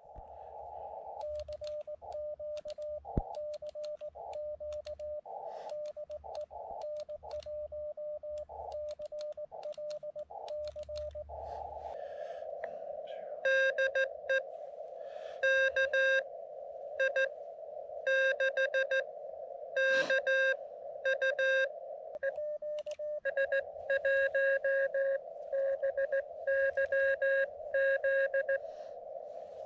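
Morse code (CW) from a portable ham radio transceiver: a steady tone keyed on and off in dots and dashes over the receiver's narrow band of hiss. About 13 seconds in, a louder, buzzier keyed tone at a slightly lower pitch joins in.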